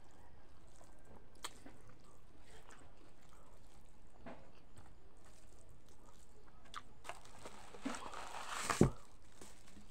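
A person chewing a mouthful of rice and meat, with small scattered clicks from mouth and fingers. About eight seconds in a rush of noise builds and ends in one loud thump.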